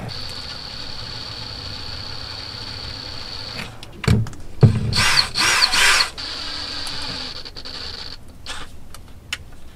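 Lightweight power drill running slowly with a steady high whine as its bit bores a shallow hole in the 1994 F150's transmission for a thread-repair insert. About four seconds in come two knocks and a second or so of louder, rougher grinding before the steady whine resumes. A few clicks follow near the end.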